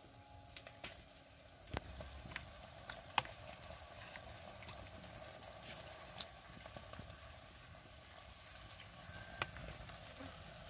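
Young jackfruit pieces sizzling in a clay cooking pot: a faint, steady sizzle with scattered crackles and pops.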